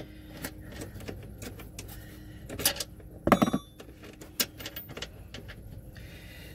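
Socket wrench working the seat-mount bolts: scattered metal clicks and clinks, with a louder knock about three seconds in.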